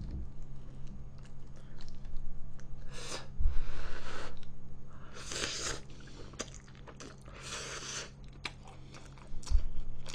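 A person eating thick instant jjajang noodles close to the microphone. There are three long slurps and chewing, with a couple of dull low bumps.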